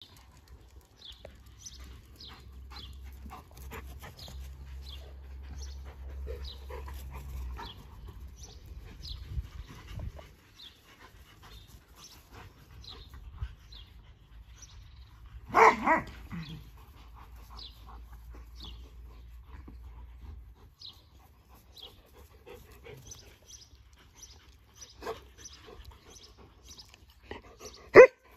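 Dogs playing together, with a dog barking twice in quick succession about halfway through and a short, very loud sharp sound near the end.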